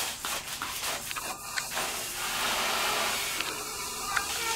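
Garden hose pistol-grip spray nozzle hissing steadily as it sprays water, a little louder from about two seconds in.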